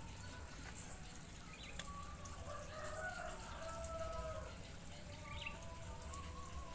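A rooster crows faintly: one drawn-out call about two seconds in, over a low steady hum.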